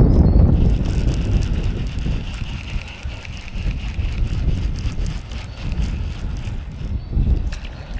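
A fishing reel being cranked, a steady whir with fast clicking that starts about half a second in and stops near the end, over a low wind rumble on the microphone.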